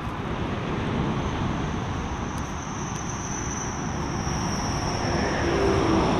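Steady rush of road traffic on a dual carriageway, getting a little louder near the end.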